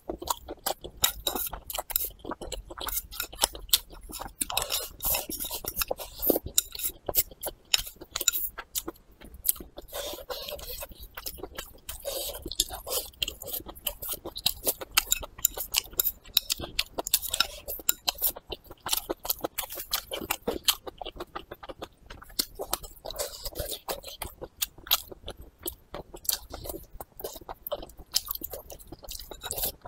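Close-miked chewing and mouth sounds of a person eating braised pork belly with preserved vegetables and rice: a dense, irregular run of clicks from the mouth, several a second.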